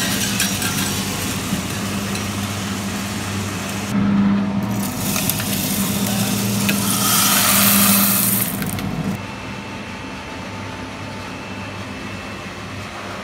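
Coffee roaster's cooling tray running: the stirring arms sweep freshly roasted beans round the perforated tray, the beans swishing and rattling over a steady motor and cooling-fan hum. About nine seconds in the hum drops away and the sound turns quieter, leaving a steady rush of air.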